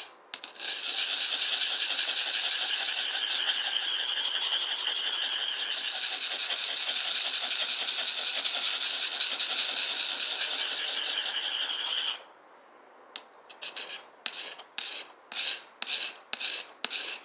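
Knife being sharpened by hand: a fast, continuous scraping run of strokes, high-pitched and rasping, that stops about twelve seconds in, followed after a short pause by separate slower strokes, about two a second.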